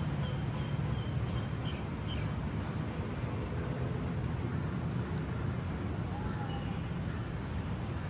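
Steady low rumble of city traffic, with a few faint short high chirps in the first two seconds and again later.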